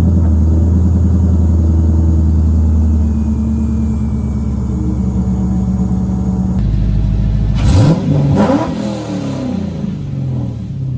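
A car engine running at a steady idle just after starting, then revved once about eight seconds in, rising sharply and falling back to idle.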